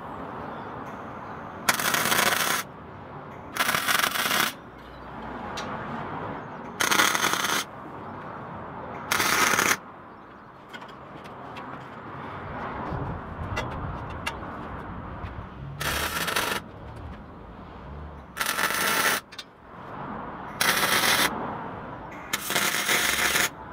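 MIG welder arc crackling and sizzling in short bursts of under a second, about eight in all with pauses between, as brackets are tack- and stitch-welded onto the bike frame's tubes.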